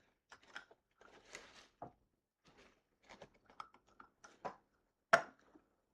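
Small plastic clicks and rattles from a vintage Kenner mini rig toy being turned over and handled, with one sharper click about five seconds in.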